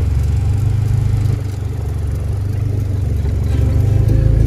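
Car engine and road noise heard from inside the cabin as the car drives slowly: a steady low drone that eases briefly about a second and a half in.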